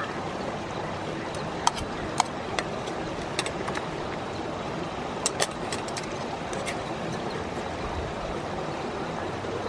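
Metal chopsticks clicking sharply against a metal camping pot several times while food is served, over a steady rushing noise.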